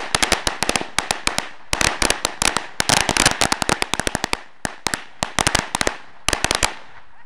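A string of firecrackers going off: a rapid, irregular volley of sharp bangs in several clusters with short pauses, stopping shortly before the end.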